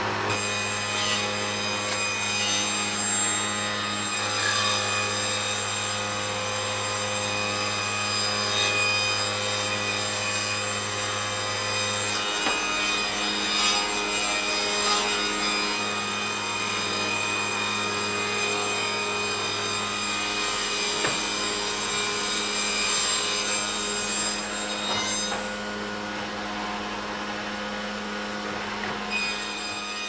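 Old cast-iron sawmill saw running with a steady hum while planks are fed through it, the blade cutting wood with a continuous rasping hiss. The cutting noise drops off for a few seconds near the end, then returns.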